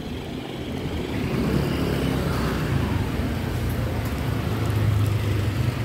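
A motor vehicle engine running close by on the street, a steady low rumble that grows louder about four to five seconds in.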